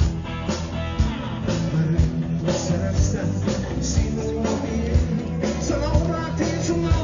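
A live rock band playing amplified through a stage PA: electric guitars, bass and a drum kit keeping a steady beat of about two strikes a second.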